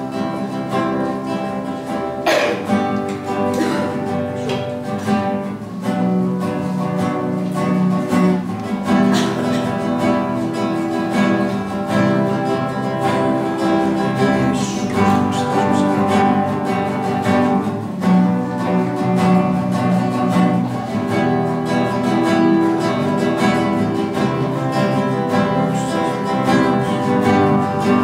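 Live instrumental worship music: an electric keyboard played with a strummed acoustic guitar, going on without a break.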